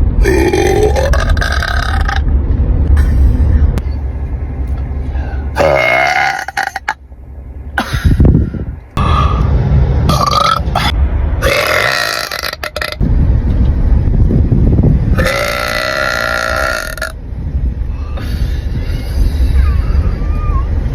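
A series of loud, drawn-out burps, about six of them a few seconds apart, each lasting up to about two seconds, with the pitch bending as they go. A low rumble runs underneath.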